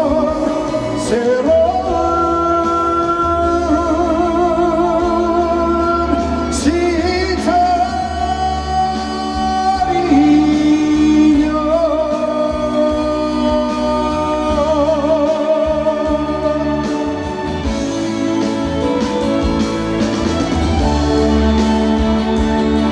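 Trot song sung live over a backing track: a singer holds long, wavering notes with wide vibrato over a steady bass-heavy accompaniment.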